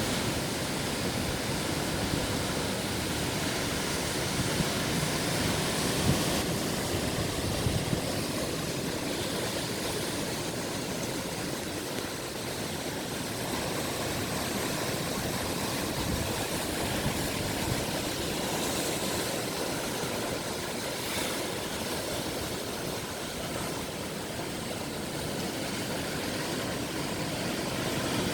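Ocean waves: a steady wash of surf that swells and eases gently in level.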